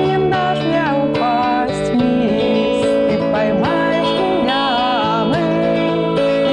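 Music: a guitar accompanying a woman's voice singing a held, wavering melody.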